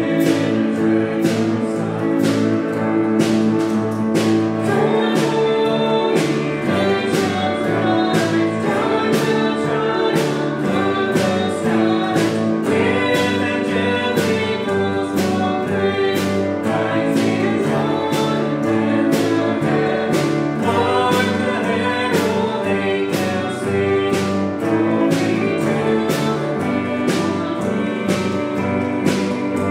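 Christian worship music: singing over a band with a steady beat.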